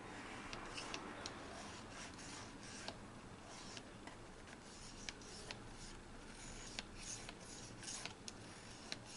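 Faint, scattered clicks and light rubbing over a low steady hiss.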